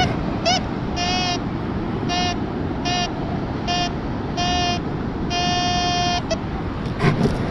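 Metal detector sounding a target signal: a series of buzzy beeps at one steady pitch as the coil passes back and forth over a buried metal object, about six beeps, the last held for about a second.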